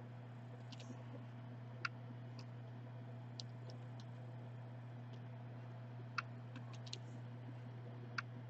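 Faint, scattered sharp clicks and ticks from hand soldering a DC jack's pins onto a laptop circuit board, over a steady low hum.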